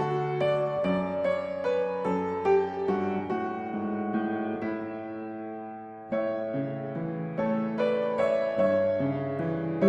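Background piano music: a slow melody of single struck notes over chords, which fades down and starts again about six seconds in.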